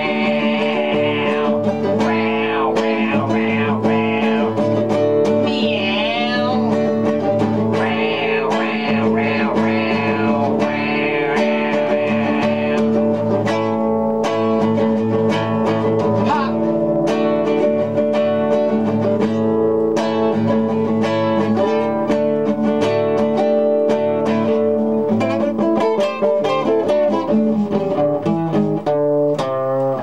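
Classical guitar strummed and picked, with a wordless sung vocal over the first dozen seconds or so. After that the guitar plays on alone in picked notes.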